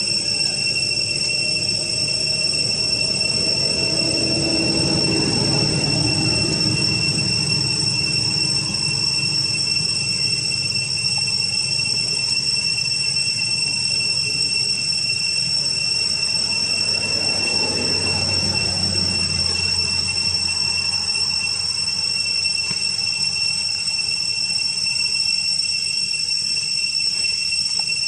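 Cicadas droning in a steady, high-pitched even whine of several held tones, with a low rumble underneath for a few seconds in the first third.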